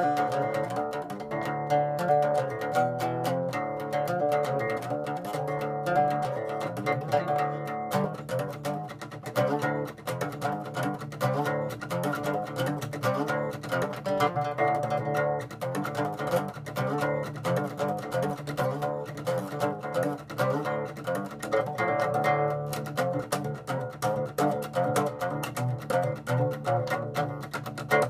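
Solo cutaway acoustic guitar being strummed and picked in a continuous, rhythmic run of chords, at a steady level throughout.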